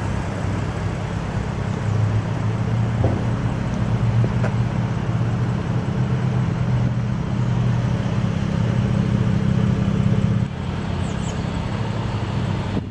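2011 BMW 335i's turbocharged three-litre straight-six idling through its sport exhaust, a steady low hum that drops somewhat about ten seconds in.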